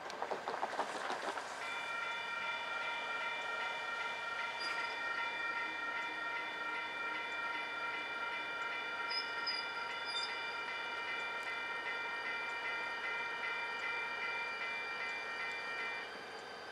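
A brief burst of noise, then a steady chord of high tones, some of them pulsing evenly, that starts about a second and a half in and cuts off abruptly near the end: a railroad warning signal sounding as locomotives approach.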